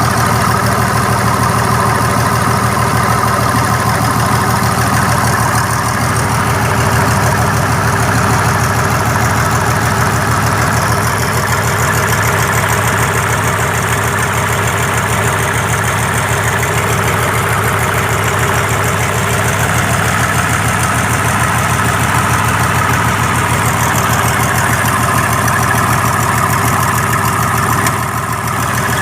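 Mitsubishi 6D14 six-cylinder diesel engine of a 75 kVA generator set, freshly overhauled, running steadily at an even speed.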